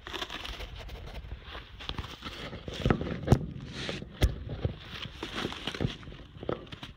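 Tiger biting and tearing apart a paper-covered cardboard pumpkin piñata: irregular crackling and ripping with sharp snaps, the loudest about three and four seconds in.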